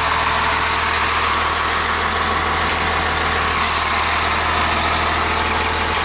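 Cummins 8.3-litre diesel of a 1999 Blue Bird TC2000 rear-engine school bus idling steadily, heard close to the tailpipe.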